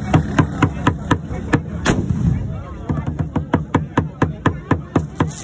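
Fast, steady percussive music beat, about four sharp hits a second over a pulsing bass. The beat drops out briefly after a single hard hit about two seconds in, then picks up again.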